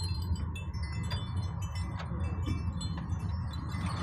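Steady low rumble of a sightseeing shuttle riding along a road, with many short high clinks and tinkles scattered through it, like loose metal parts or fittings rattling as it moves.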